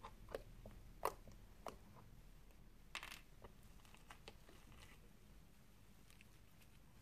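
Faint sticky clicks and pops of slime being poked and pulled by fingers, the loudest about a second in, then a short crackle about three seconds in as foam-bead slime is handled, and a few small ticks after.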